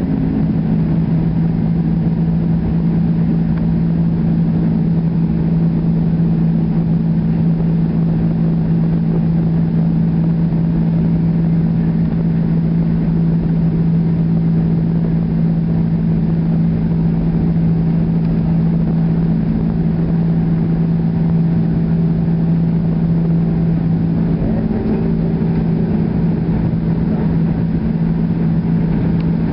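Airbus A300-600R's twin turbofan engines at takeoff thrust, heard from inside the cabin over the wing: a loud, steady drone with a low hum, over a low rumble as the aircraft rolls down the runway and lifts off.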